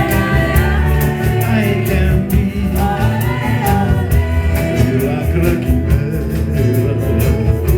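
Live band playing a song with singing over a steady drum beat and bass.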